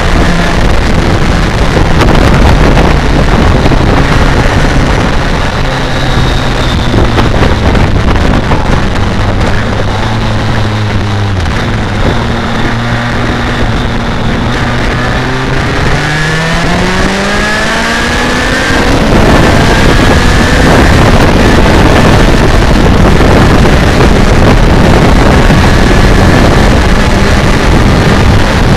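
BMW K1200R Sport's inline-four engine running at road speed under heavy wind rush on the microphone. About two-thirds of the way in, the engine note climbs steadily as the bike accelerates, and the wind rush then grows louder.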